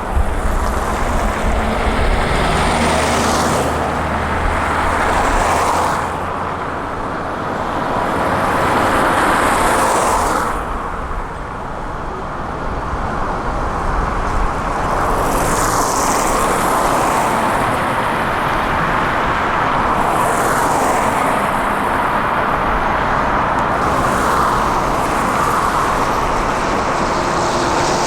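Heavy construction machinery running, a continuous engine noise that swells and eases every few seconds.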